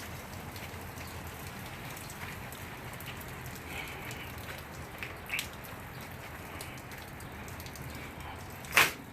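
Steady patter of rain, with faint scattered ticks. A sharp click or knock sounds just before the end.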